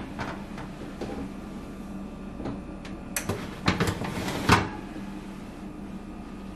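Cake pan set down on a gas oven's wire rack and the rack pushed in: a few light clicks, then a cluster of metal scrapes and clanks about three to four and a half seconds in, the last the loudest, over a steady low hum.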